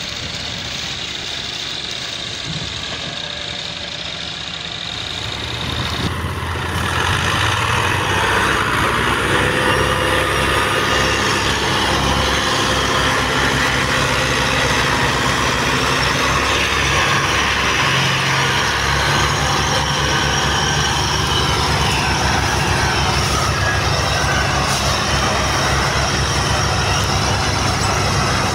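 Diesel tractor engines working hard under heavy load as two tractors pull a loaded sugarcane trailer in tandem. The engine sound gets louder about six seconds in and then holds steady.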